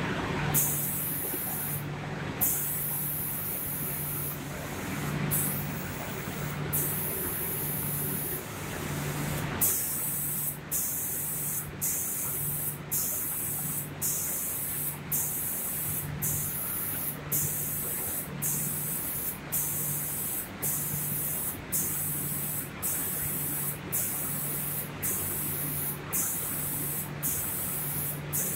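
Spray gun of an automatic cabinet-door spray-painting machine hissing as it sprays, in long spells at first, then switching on and off about once a second as it makes its passes over the door. A low machine hum runs underneath.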